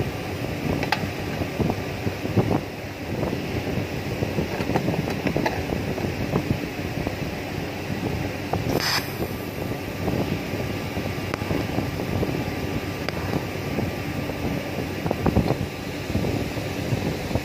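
TIG welding setup working on a thin stainless-looking pipe: a steady rough hiss with scattered crackles, and a brief sharper hiss about nine seconds in as a tack weld is struck on the joint.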